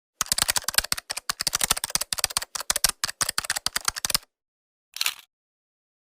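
Computer keyboard typing sound effect: a quick, irregular run of keystroke clicks for about four seconds, then one short cluster of clicks about a second later.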